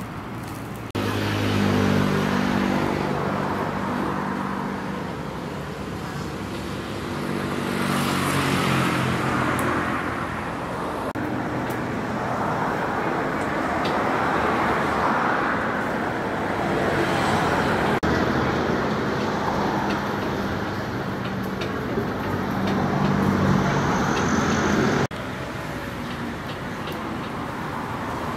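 Street traffic: motor-vehicle engines running and passing close by, with road noise whose pitch rises and falls. It starts abruptly about a second in and drops off suddenly near the end.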